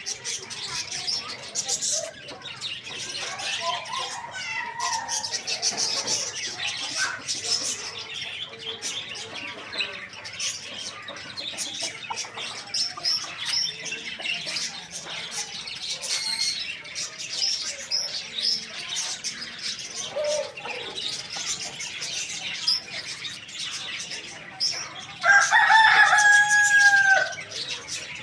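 A rooster crows once near the end, loud and about two seconds long. Dense high chirping of many small birds runs underneath throughout.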